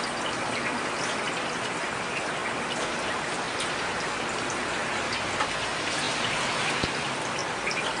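Heavy rain falling steadily, a dense even hiss with scattered individual drops ticking through it.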